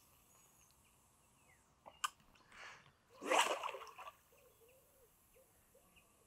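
A sharp click about two seconds in, then a splash of water lasting about a second. A faint wavering tone follows.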